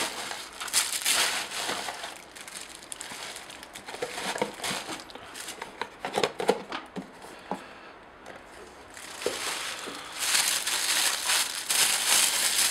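Bubble wrap and a plastic bag crinkling as they are handled and pulled from a cardboard box. There are scattered sharp clicks in the middle, and it is densest at the start and for the last few seconds.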